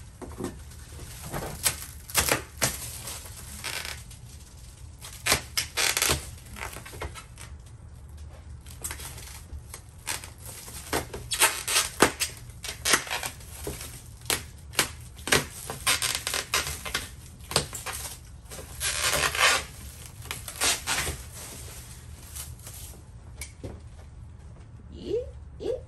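Plastic stretch wrap crinkling and crackling in irregular bursts as it is pulled and torn off a cabinet.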